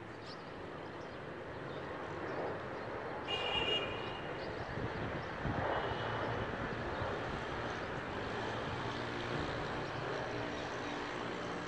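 Distant F-16 fighter jet's engine rumbling steadily as it flies past, slowly getting louder. A short high-pitched chirp sounds about three seconds in.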